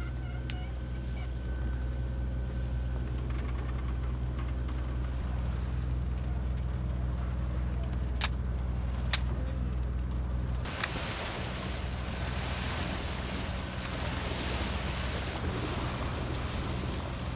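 Sailing yacht's inboard engine running steadily under power, a low even drone, with two brief clicks about eight and nine seconds in. Just past ten seconds the sound cuts to a broad rush of wind and water, with the engine faint beneath it.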